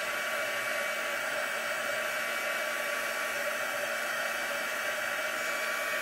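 Stampin' Up! heat tool running steadily, its fan blowing a constant rush of air with a faint steady whine, held over freshly stamped white craft ink to dry it.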